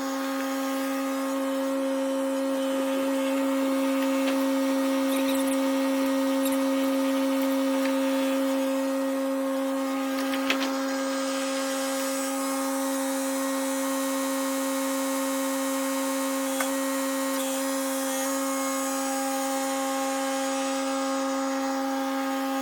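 Small Kubota compact tractor engine running at a steady, unchanging speed with a constant whine, a couple of brief knocks about ten and sixteen seconds in.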